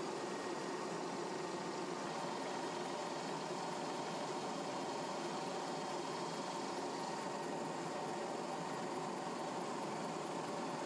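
Helicopter engine and rotor noise, a steady even drone with a few faint steady tones and no change in pitch or level.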